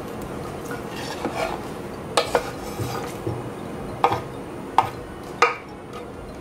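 A kitchen knife scraping diced potatoes across a wooden cutting board into a saucepan of water, with a handful of sharp clacks as the knife and board knock against the metal pot.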